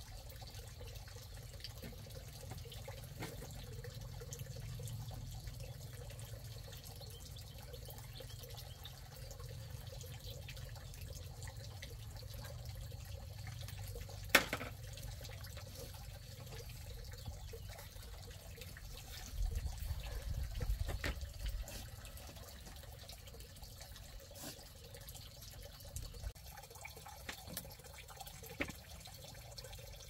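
Water trickling and dripping steadily, with one sharp knock about halfway through and a brief low rumble a few seconds later.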